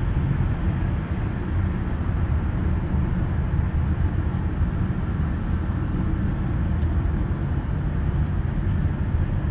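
Steady low rumble with a light hiss, unchanging throughout, and one faint click about seven seconds in.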